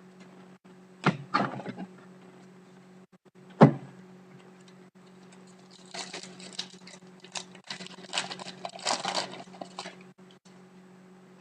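Trading cards being handled on a table: two sharp knocks as cards are set down, then several seconds of crackly rustling as a card pack's wrapper is torn open. A steady low electrical hum runs underneath.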